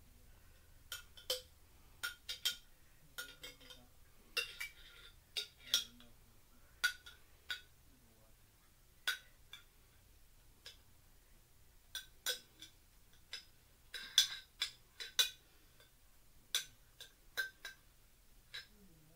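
Metal spoon clinking and scraping against a jar while scooping out Alfredo sauce: many short, sharp clinks at an irregular pace, some in quick pairs.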